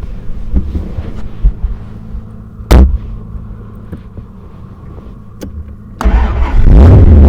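Car engine idling with a steady low hum, heard from inside the car, with a single loud thump a little under three seconds in. Near the end a much louder, distorted sound rises suddenly and stays.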